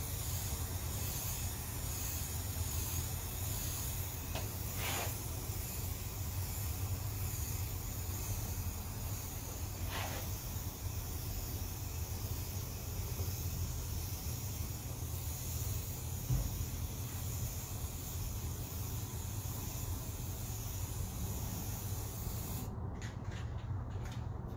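Aerosol spray-paint can hissing steadily as paint is sprayed through stencils, over a low background rumble. The spray cuts off shortly before the end, followed by a few light clicks and knocks.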